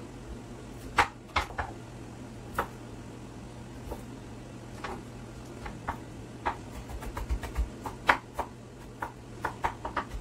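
Kitchen knife knocking on a wooden cutting board while cutting broccoli: a few separate knocks in the first half, then quicker chopping strokes in the second half, over a steady low hum.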